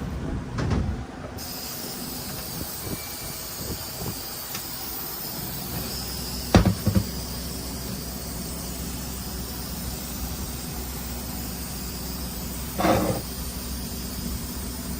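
A few knocks and clunks of a new automatic-transmission pump cover being handled and turned over for inspection, the loudest a double knock about halfway through and another near the end, over a steady shop hum and hiss.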